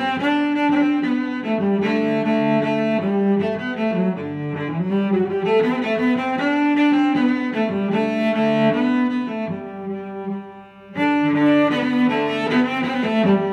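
Instrumental background music of slow, held notes, with a brief dip in loudness about three-quarters of the way through.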